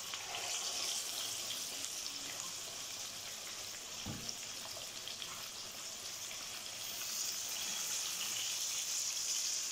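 Battered, sesame-coated chicken leg pieces sizzling in hot oil in a frying pan over a high gas flame: a steady hiss that grows a little louder near the end, with a soft knock about four seconds in.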